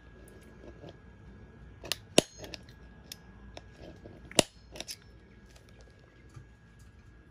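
Several sharp metallic clicks and taps from hand tools working on a broken bolt, two louder knocks about two seconds and four and a half seconds in, with no power tool running.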